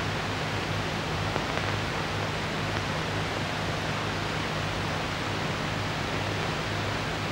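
Steady hiss with a low hum underneath, the background noise of an old film soundtrack, with a faint click or two.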